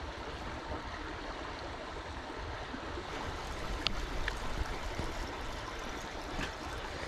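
Steady rush of flowing river water, with a faint click about four seconds in.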